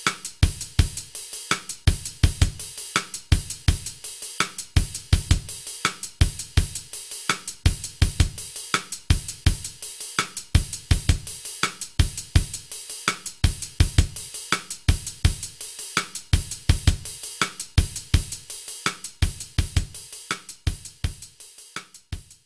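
Outro music: a steady drum-kit beat with kick drum, snare and hi-hat.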